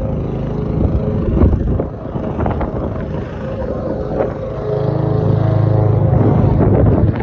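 An engine running steadily, growing louder from about five seconds in, with a few light knocks over it.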